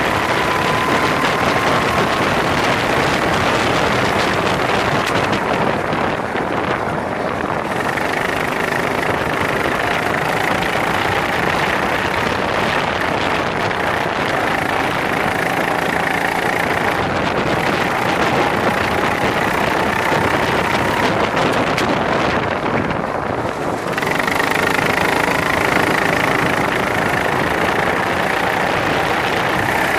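Racing kart engine running hard with heavy wind rush over the onboard microphone; the engine note climbs slowly in pitch as the kart accelerates, and twice the sound dips briefly, about a fifth of the way in and again about three-quarters of the way through.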